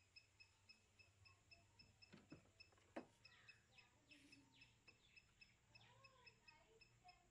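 Near silence with a faint, even ticking about four times a second. A few faint clicks come around two and three seconds in, and faint bird calls follow through the middle.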